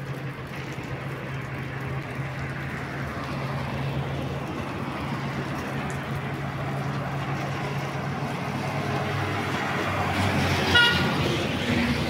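Road traffic: a motor vehicle's engine running steadily, growing louder as traffic passes, with one short horn toot near the end.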